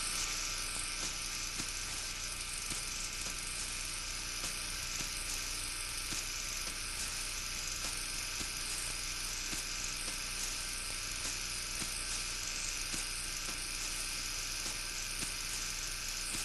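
A steady whirring hiss, even in level throughout, with faint light ticks in it.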